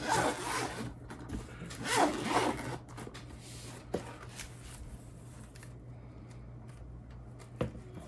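Packaging rustling and scraping in two short bursts while a keyboard case is being unpacked, then a couple of single light knocks.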